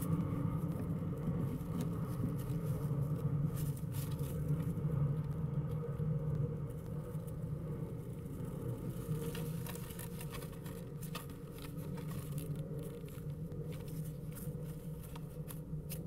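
Steady low rumble of background noise, with scattered light scratches and taps.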